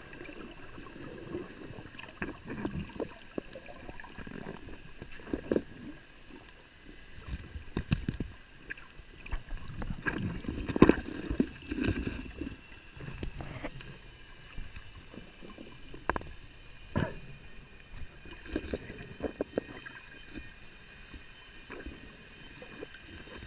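Water sloshing and gurgling, broken by irregular knocks and splashes that cluster about ten seconds in, over a faint steady high hum.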